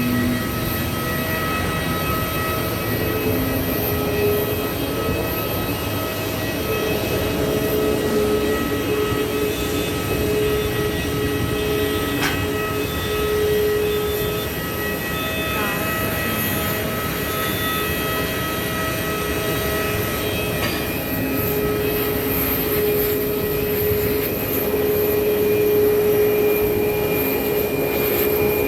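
Cabin noise inside an Airbus A320-family jet airliner: a steady rush of air and engines with several steady whining tones over it, one of them fading in and out.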